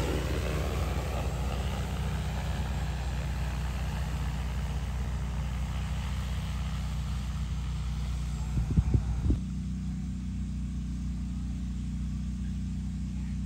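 DJI Agras T10 agricultural spray drone's four rotors running in flight, a steady hum that grows fainter as the drone flies away over the field. A few low thumps come close together about nine seconds in.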